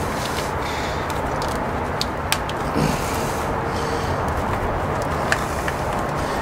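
Steady machine hum and noise in a truck repair shop, with a few light clicks as a zip tie and wiring are handled on the frame rail.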